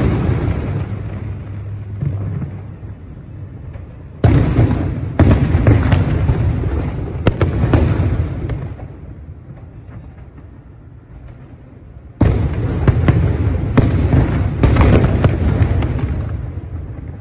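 Aerial firework shells bursting in the sky: sudden bangs, each trailing off in a long rumbling echo. They come in two volleys, one from about four to eight seconds in and another from about twelve to sixteen seconds in, with the rumble dying down between them.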